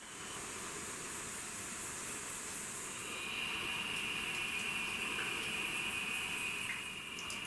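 Steady hissing outdoor ambience, with a thin, steady high-pitched whine joining about three seconds in.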